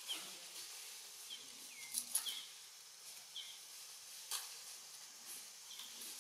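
Faint outdoor ambience: scattered short high chirps, some gliding downward, and a few brief rustles or snaps of leafy branches as a young macaque climbs, about two and four seconds in, over a steady high hiss.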